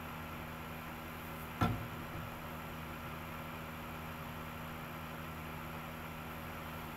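A single dull knock about one and a half seconds in, from the cardboard CD box set being handled as its booklet is fitted back in, over a steady electrical hum and hiss.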